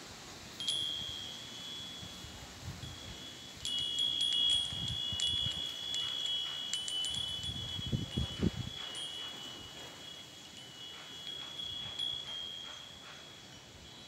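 Wind chime of metal bells swaying in the wind: one clink about half a second in, then a flurry of irregular clinks from about four to nine seconds, all ringing on at one high pitch that slowly fades.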